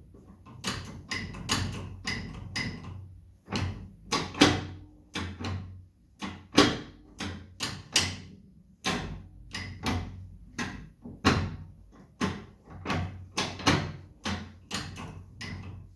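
Custom Honda Shadow motorcycle's gearbox being shifted over and over: a string of sharp clunks and clicks, about one to two a second, some in quick pairs, with a faint low hum underneath.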